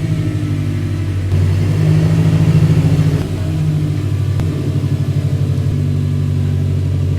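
Subaru STI's flat-four engine running with a low, pulsing rumble, getting louder for about two seconds a second in, then settling back.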